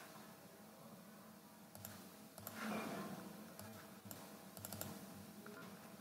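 Faint computer mouse clicks, several spread out with a quick cluster near the end, over a faint steady hum. About halfway through comes a brief, louder soft noise.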